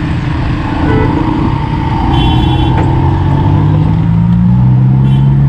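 Road traffic close by: engines of an auto-rickshaw, bus and car run over road noise. One engine note rises and grows louder over the last couple of seconds as it accelerates. A brief high-pitched tone sounds about two seconds in.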